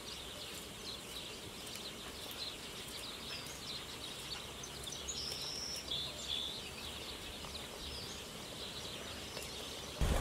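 Rural outdoor background with many small birds chirping and twittering, and a few clearer held whistled notes around the middle. A sudden loud rush of wind on the microphone comes in at the very end.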